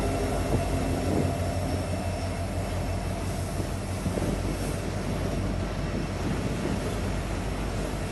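Autorack freight cars rolling past at close range: a steady rumble of steel wheels on the rails, with a few short knocks.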